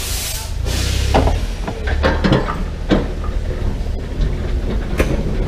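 Narrow-gauge steam locomotive moving slowly with a train of steel dump cars: a burst of steam hiss in the first second, then several sharp clanks and knocks from the cars and couplers over a steady low rumble.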